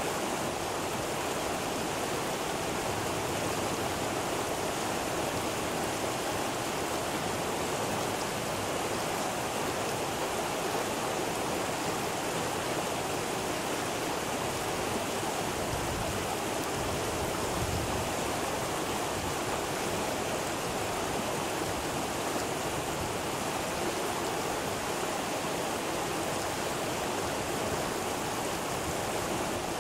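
Fast river rushing steadily over rocks and through small rapids.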